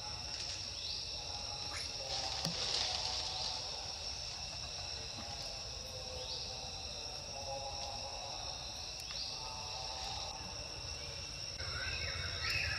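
Steady insect chorus, with a short rising call repeating every few seconds over it.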